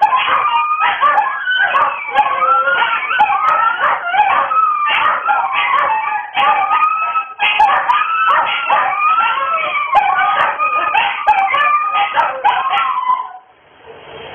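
Several small dogs howling together, their wavering, overlapping howls rising and falling in pitch, with a few yips mixed in. The howling stops abruptly near the end.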